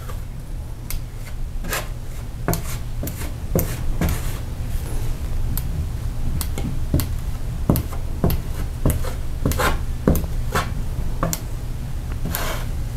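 Metal drywall knife scraping as it spreads and smooths joint compound over drywall, in repeated short strokes about one or two a second, over a steady low hum.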